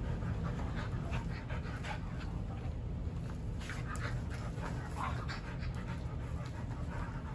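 Dogs panting, with short scuffling noises as they play-wrestle.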